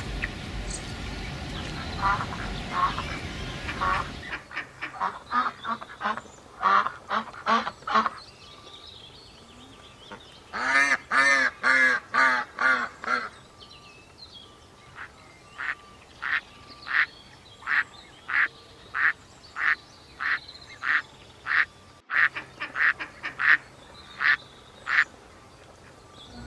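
Ducks quacking: a few calls over a noisy background at first, then clear quacks in short series, a fast burst of quacking about ten seconds in, and evenly spaced single quacks, about two a second, through the rest.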